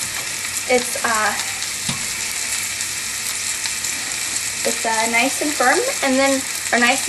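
Snapper fillets frying in a pan: a steady sizzle, with a voice heard briefly over it about a second in and again near the end.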